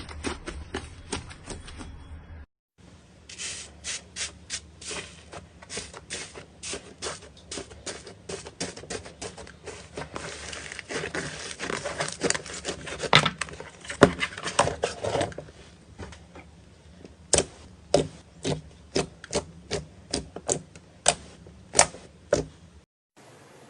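Slime being squeezed and poked, giving quick wet clicks and crackling pops in rapid runs, with a slower series of louder single pops in the last part.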